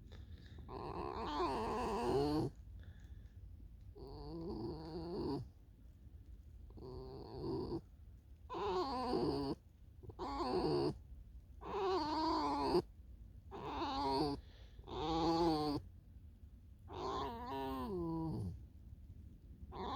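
A fox vocalizing: a series of about nine drawn-out, wavering whining calls, each about a second long, separated by short pauses.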